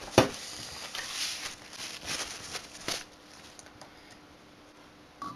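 Handling noise on a workbench: a sharp knock just after the start, then a few scrapes and rustles over the next three seconds as parts of a projection CRT are moved about, and quieter after that.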